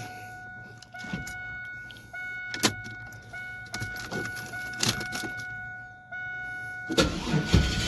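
2000 Chevrolet Camaro's ignition key being cycled on and off a few times, with clicks and a steady electrical whine as the fuel pump primes to build fuel pressure. About seven seconds in, the starter begins cranking the engine.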